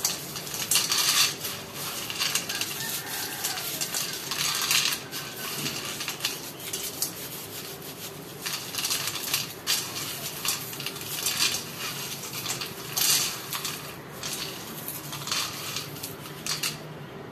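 Roasted peanuts being rubbed between the palms to loosen their skins, rustling and clicking as the nuts drop back onto the pan, in irregular bursts.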